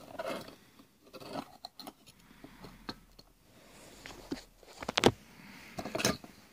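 Opinel No. 8 folding knife being handled: light scrapes and rustles with scattered clicks, the sharpest about five seconds in.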